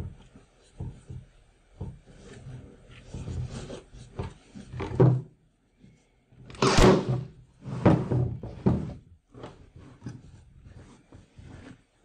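Staple gun firing staples through canvas into a wooden stretcher frame: four sharp, loud shots in the second half, the second the loudest, between rustling and handling of the canvas.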